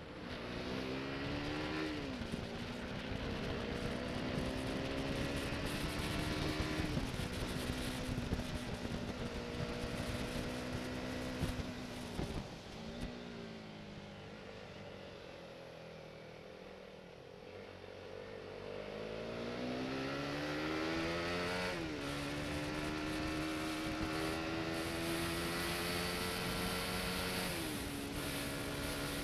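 Motorcycle engine under way, rising in pitch as it accelerates and dropping at each gear change, about five shifts in all. It eases off and falls in pitch around the middle before pulling up again, over a steady rush of wind noise.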